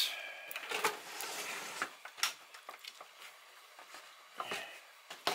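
Plastic case halves of a Brother XR3340 sewing machine being handled and split apart: scattered sharp clicks and light knocks of plastic, the loudest right at the start and another about two seconds in.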